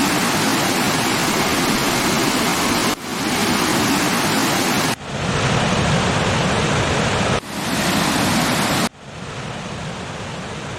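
Waterfall noise: the steady rush of falling water. It changes abruptly about every two seconds as one clip cuts to the next, and it is quieter for the last two seconds.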